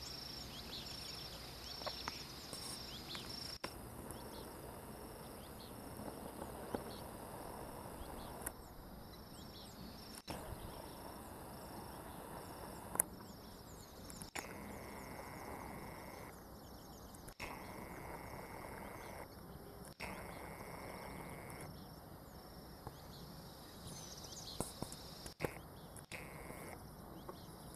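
Rural outdoor ambience: insects trilling, including a high pulsing note, over a faint even background hiss. The ambience changes abruptly several times.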